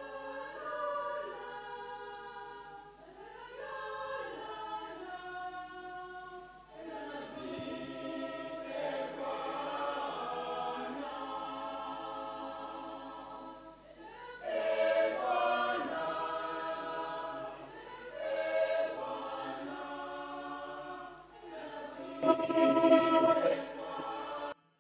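Mixed church choir of women's and men's voices singing unaccompanied, in phrases with short breaks between them. It is loudest near the end, then cuts off suddenly.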